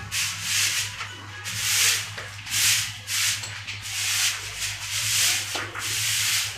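Rhythmic rough scraping strokes, about one to two a second, over a steady low hum.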